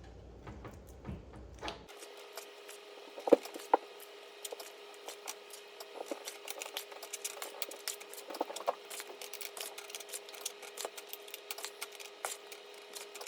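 A spoon clicking and scraping as mac and cheese is scooped into individual cups, with a few louder knocks a few seconds in, over a faint steady hum.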